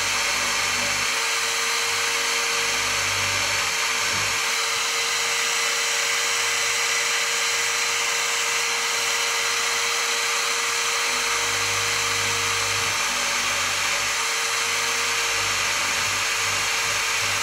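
Electric drill in a drill-press stand running steadily, its bit boring holes into a carved wooden lure body. The motor gives an even whine with one steady tone throughout.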